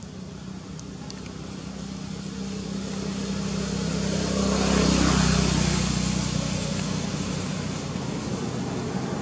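A motor vehicle driving past: a low engine hum with road noise that swells to its loudest about five seconds in, then fades.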